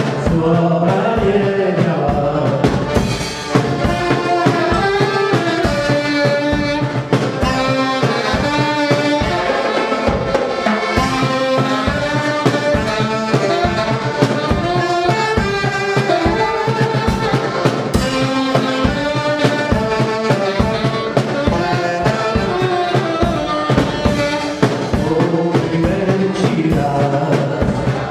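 Live folk dance band music: accordion and saxophone carry the melody over a steady drum kit beat.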